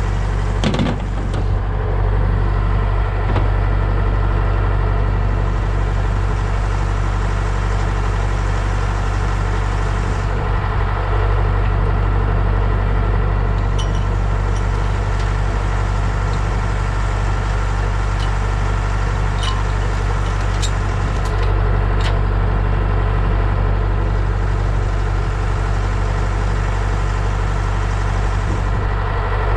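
Engine running steadily, a continuous low drone with a few light clicks.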